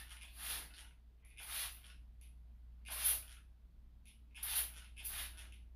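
Plastic fine-mist trigger spray bottle pumped in short hissing sprays, about five of them at uneven intervals, misting water onto orchid roots.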